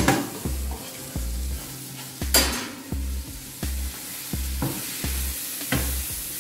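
Risotto sizzling in a pan as it is stirred, with a few sharp knocks against the pan, over background music with a steady bass beat about twice a second.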